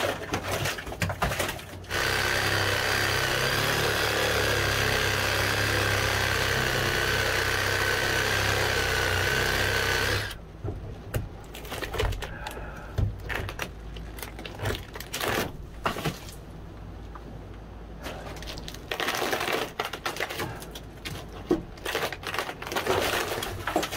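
A motor-driven power tool runs steadily for about eight seconds and cuts off abruptly, followed by irregular knocks and clatter of demolition debris.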